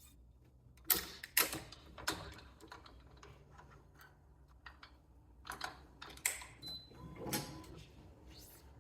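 Irregular clicks and light knocks from a badminton racquet being restrung, with the sharpest pair about a second in and another cluster later on.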